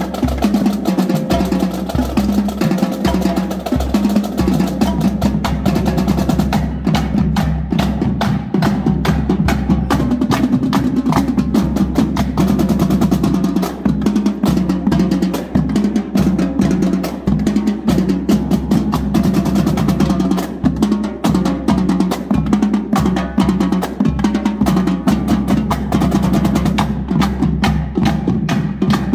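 Marching drumline playing a fast, dense rhythm on snare drums over a set of tuned marching bass drums.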